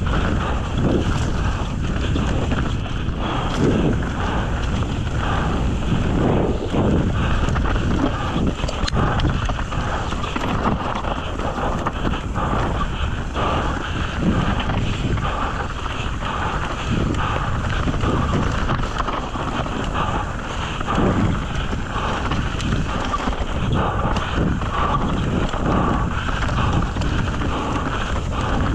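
Wind rushing over the camera microphone as a mountain bike is ridden fast down a dirt trail, with a steady stream of irregular knocks and rattles from the tyres and bike over rough ground.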